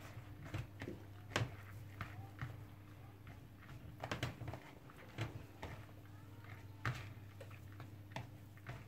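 Hands mixing and squeezing moistened fine bulgur with pepper and tomato paste in a plastic bowl, making irregular soft rustles and clicks. A low steady hum runs underneath.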